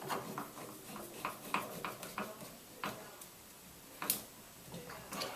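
Light, irregular metallic clicks of a screwdriver turning a screw into the shower valve's trim hardware, with one sharper click about four seconds in.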